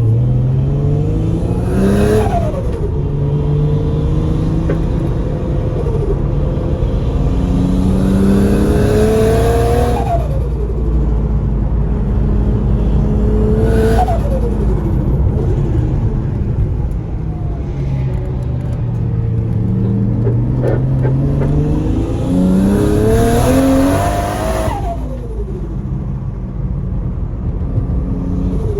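Turbocharged RB25 straight-six of an R33 Skyline accelerating hard through the gears. The engine pitch climbs and then drops at each upshift, about four times, with a short burst of hiss at each shift.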